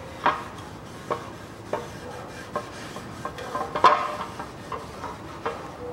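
Metal engine oil pan from a Nissan Qashqai 2.0 knocking lightly on a concrete floor as its flange is wiped down with a rag: short ringing clanks at irregular intervals, about eight in all, the loudest about four seconds in, with rag rubbing between them.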